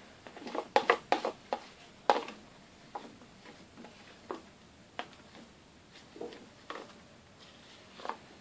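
Irregular clicks and knocks of a spatula working against a bowl of mould-making rubber: a quick cluster in the first two seconds, then single taps every second or so.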